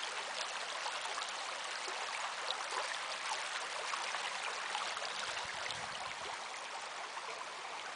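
Small forest stream trickling over stones: a steady, even rush of running water with nothing else standing out.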